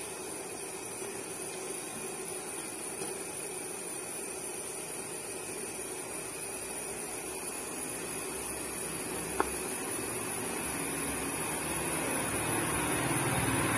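Steady hiss from an open idli steamer on a lit stove, growing slowly louder, with one light click about nine seconds in.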